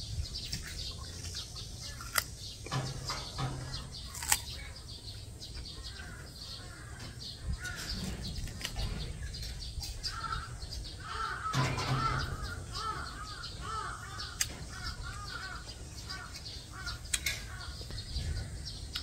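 Birds calling outside, with a run of repeated chirping calls in the middle. A few sharp crunches come through as someone bites into a crisp peach.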